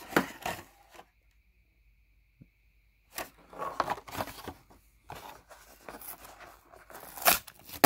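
Hot Wheels blister package being torn open by hand: about four seconds of ripping and crinkling of cardboard backing and plastic blister, with a sharper rip near the end.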